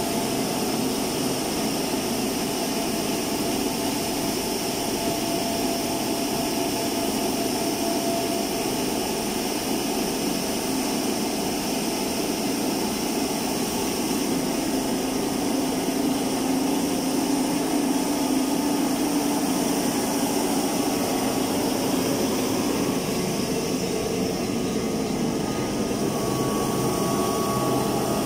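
A wet sanding machine for wood-plastic (WPC) door panels running steadily, with its electric motor, sanding drum and mesh conveyor making an even mechanical hum and hiss. A low hum grows a little stronger for a while midway through.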